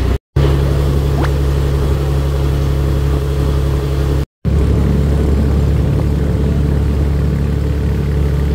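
Small boat's engine running steadily at an even pitch, cut off twice for an instant.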